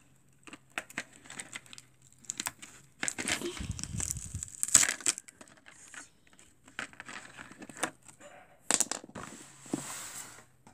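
Clear plastic toy packaging crinkling and crackling as hands pull a pony figure out of it, in irregular bursts that are loudest about three to five seconds in and again near the end.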